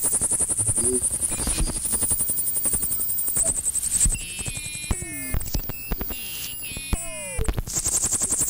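Experimental electronic noise music: a rapid, even pulsing with a bright high hiss. Near the middle this gives way to several falling, gliding tones before the pulsing returns.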